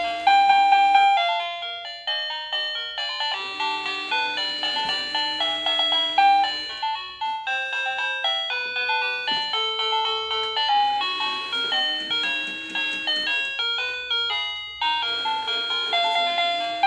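Electronic chime tune from a Magibx coin-ATM piggy bank: a simple melody of short bell-like notes, each fading quickly, which the toy plays as dollar bills are fed into its slot.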